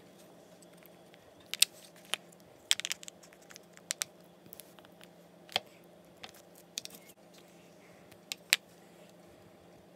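Thin clear plastic candy mold clicking and crackling as it is handled and pressed, with soft candy being worked onto a paper lollipop stick. There are a dozen or so sharp, irregular clicks spread over several seconds, the loudest near the start and near the end, over a faint steady hum.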